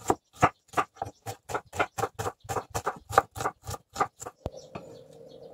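Chef's knife finely chopping an onion on a plastic cutting board: quick, even knife strikes against the board, about four a second, stopping about four seconds in. After that, a faint steady hum.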